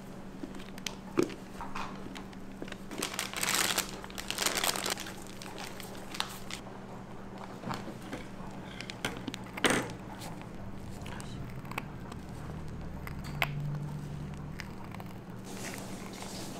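Crinkling and rustling of food being handled, with scattered sharp clicks and light knocks over a steady low hum.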